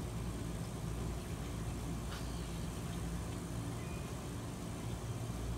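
A steady low machine hum, like a motor running.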